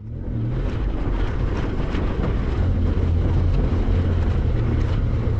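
Motorcycle engine running steadily while riding, a low even engine note with rushing noise over it.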